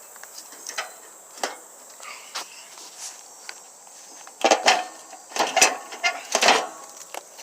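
Crickets chirping steadily in the background, with scattered clicks and then a flurry of louder knocks and rattles about halfway through, from hands working at the mower by hand.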